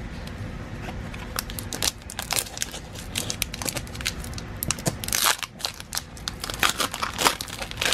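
Foil Pokémon trading card booster pack wrapper crinkling and crackling in the hands as it is worked open, with denser bursts of crackle in the second half.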